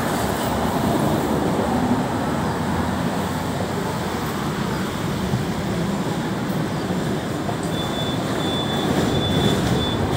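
A Hong Kong double-decker electric tram running along its street track, giving a steady rolling rumble of wheels on rails. A faint, broken high whine comes in near the end.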